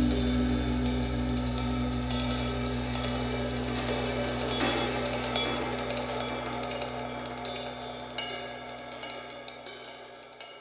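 Background music with sustained low tones and cymbal strikes, fading out steadily toward the end.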